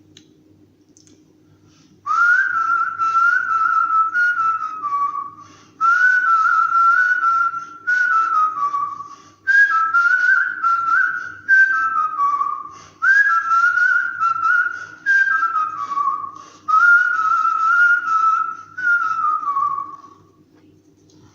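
A man whistling a song melody by mouth in the artistic whistling style: phrases that start high and step downward, each a couple of seconds long with short breaths between, starting about two seconds in and stopping shortly before the end.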